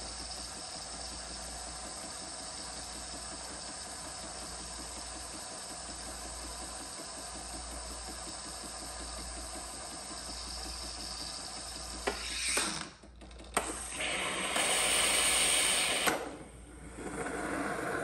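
Philips Saeco Xelsis SM7685 super-automatic espresso machine frothing milk, a steady mechanical hum and hiss as frothed milk runs from the carafe spout into a glass. About twelve seconds in the sound turns uneven, with louder hissing stretches broken by brief drops.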